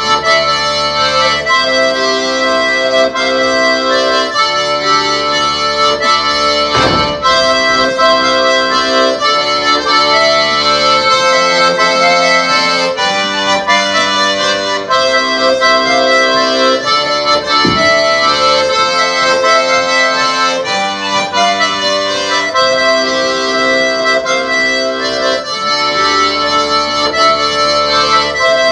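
Accordion playing a Breton dance tune in held chords that change every second or two, with a couple of brief thumps partway through.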